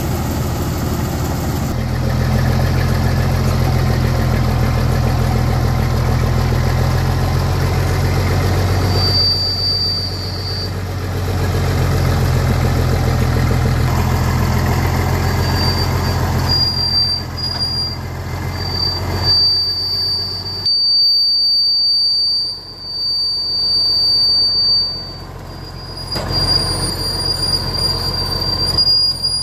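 A motor vehicle's engine runs with a heavy, steady hum, which falls away about two-thirds of the way through. A thin, high, steady squeal comes in briefly near the middle and then carries on through the last third.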